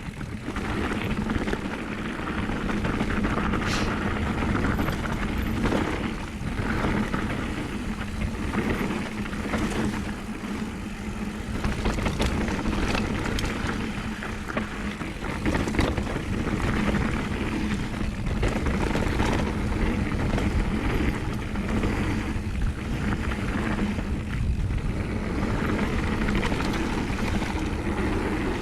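Downhill mountain bike rolling fast over a dirt trail: steady tyre and wind rush with frequent short knocks and rattles from the bike going over bumps.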